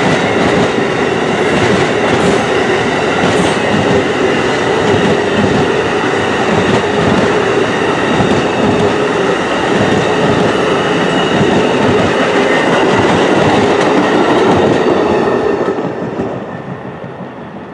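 Amtrak passenger train cars rolling past on the rails, a loud steady noise of wheels on track. It falls away about sixteen seconds in as the end of the train passes.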